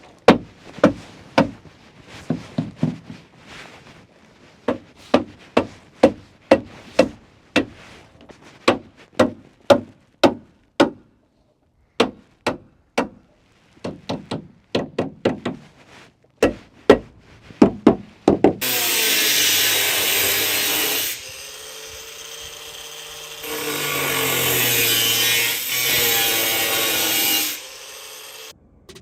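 Hammer blows driving nails into wood, in quick runs of strikes for most of the time. Near the end a power saw makes two cuts, the second one longer.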